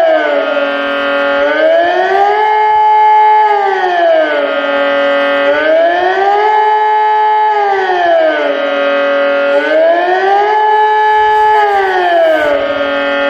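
ET 751 civil-defence siren sounding the general alarm in a test: a wailing tone that rises and falls about every four seconds, holding for a moment at its high and low pitches.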